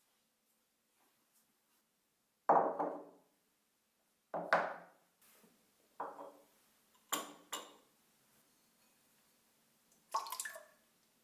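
A series of six short knocks and clinks of dishes or glassware being handled, each dying away quickly, spaced a second or two apart.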